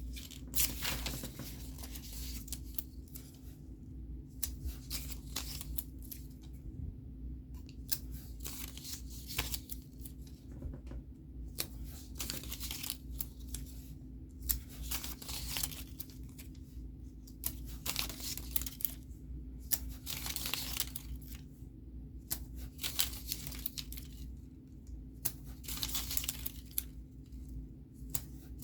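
Scratch-off stickers being peeled from their backing and pressed onto paper pages: a series of short, irregular ripping and rustling sounds over a faint steady hum.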